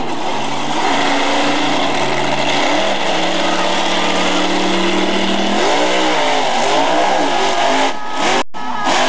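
Monster truck engine running hard, held at a steady high pitch for a couple of seconds, then revved up and down over and over in the second half. A short dropout near the end.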